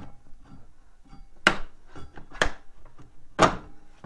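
Three sharp knocks about a second apart, the last the loudest, as the old drive belt of a 2015 Ski-Doo Summit 800 E-TEC is worked off its opened CVT clutch.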